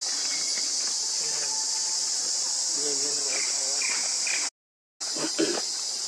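Steady high-pitched drone of a chorus of insects. It cuts out for about half a second a little past the middle, then resumes.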